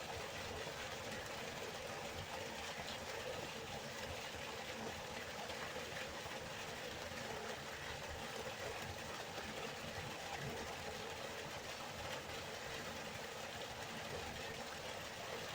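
River water flowing, a steady rushing noise without a break.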